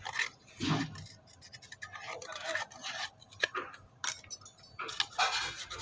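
Irregular scraping and scratching of a tool on a smartphone's stripped mid-frame as old adhesive residue is cleaned off, with a few light clicks a little past halfway.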